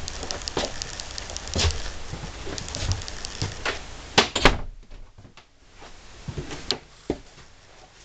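Clicks and knocks of a door being handled, with two sharp, loud clicks about four seconds in, then quieter with a couple of lighter clicks.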